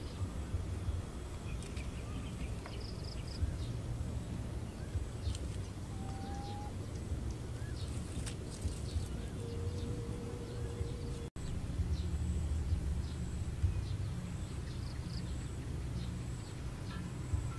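Outdoor ambience: a steady low rumble and faint bird chirps, with scattered light clicks and taps of thin split-bamboo slats being laid in place. The sound cuts out for an instant a little past the middle.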